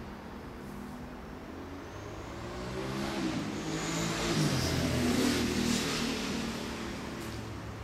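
A motor vehicle passing by: its engine and tyre noise grow louder over a few seconds, peak in the middle, then fade away.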